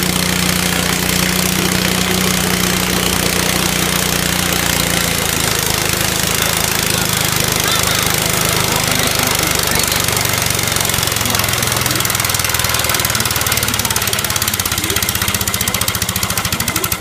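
Garden tractor's small engine running hard under load while pulling a weight sled. The steady, loud note starts to throb in regular pulses near the end.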